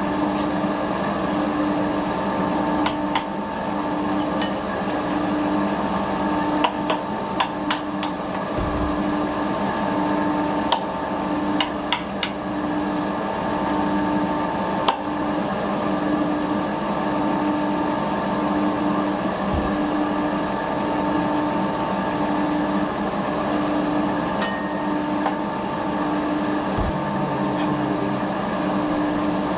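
Metal lathe running as it turns a steel part: a steady whine of several tones over a regular pulsing hum. Sharp clicks come now and then, mostly in the first half.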